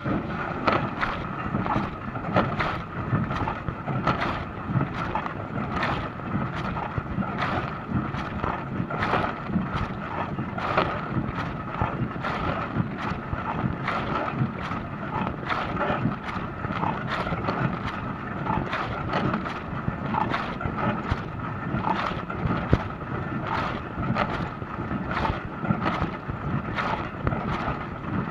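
Dishwasher starting a wash: the water suddenly comes on and sprays and splashes against the inside of the tub in uneven repeated bursts, over a steady whine.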